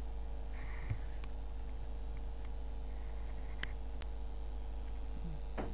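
Steady electrical hum and room tone from the recording setup, with a few faint clicks. A brief mouth or breath sound comes just before the end.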